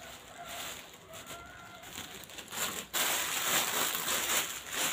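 Rustle of a ceruti dress being handled and swung, quiet at first and then loud from about three seconds in.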